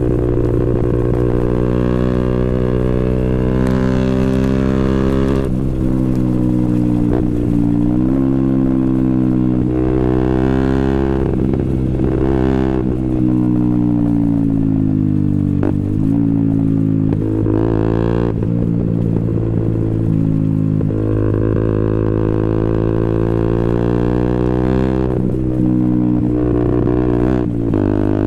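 2012 KTM Duke 125's single-cylinder four-stroke engine running loud through a Scorpion exhaust with the dB killer removed, heard from on board while riding. The engine pitch climbs and drops several times, with brief dips between rises as the throttle is rolled off and gears change.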